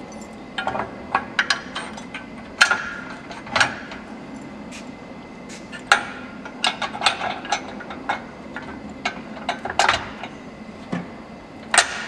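Scattered metal clanks and knocks as steel pins and the steel frame of a motorcycle lift are handled and fitted together, with a quick cluster of clicks in the middle and a sharp knock just before the end.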